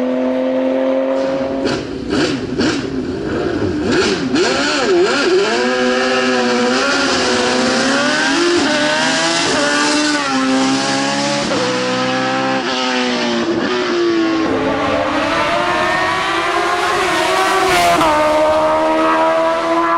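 Race car engine under hard acceleration, revving up and dropping back with each quick upshift as it pulls through the gears. A few seconds in there is a series of sharp cracks.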